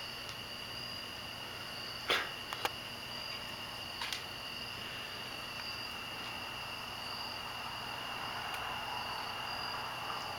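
A few sharp clicks and knocks as a puppy noses and paws at an ice cube in her ceramic water dish, the loudest about two seconds in, then a soft splashing of water near the end. A steady high thin whine sounds behind it throughout.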